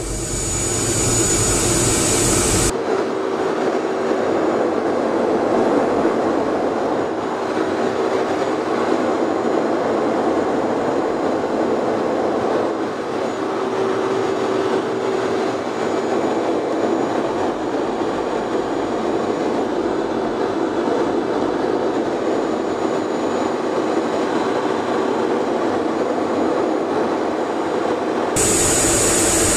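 Steady rushing noise of an F/A-18 Hornet in flight, heard inside the cockpit: jet engine and airflow. It turns thinner, without its deep rumble, about three seconds in, and fuller again near the end.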